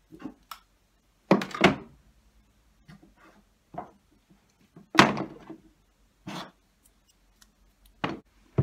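Medicine bottles, tubes and boxes being set down and shifted about inside a wooden crate: a handful of irregular knocks and clunks, the loudest about five seconds in.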